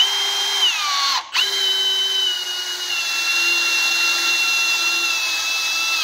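Electric drill running a pilot bit into the steel tube of a VW Beetle front axle beam. It runs briefly and winds down about a second in, then starts again and runs steadily, its whine dipping a little in pitch as the bit bites, before winding down at the end.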